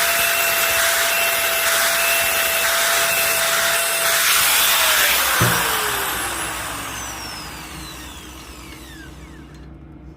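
Electric grinder running at full speed. About four and a half seconds in it is switched off, and its whine falls steadily in pitch as the motor coasts down and fades. There is a short knock about a second after switch-off.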